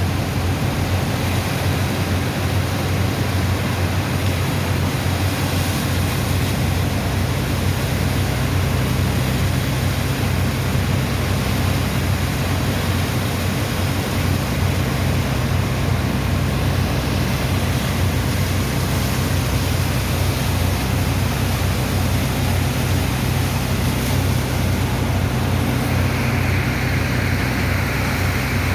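Diesel engine of a sand dredger's pump running steadily, with a constant rush of water and sand slurry through the discharge pipe.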